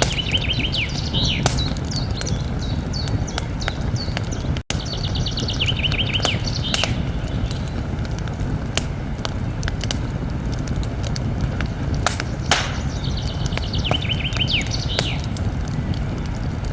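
Campfire burning, with frequent sharp crackles and pops over a low steady rumble of the flames. A small songbird sings a short trilled phrase three times: at the start, about six seconds in, and again near the end. There is a brief dropout just before five seconds.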